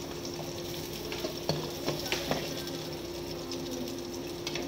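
Metal utensil stirring and scraping food in a frying pan, with a few sharp clicks against the pan in the first half, over a steady hum.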